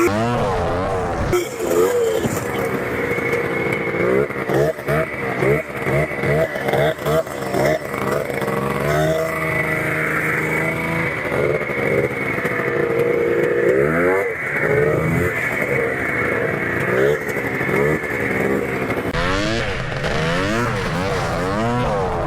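Two-stroke snowmobile engine revving up and falling back over and over as the sled is ridden, the pitch sweeping up and down every second or two.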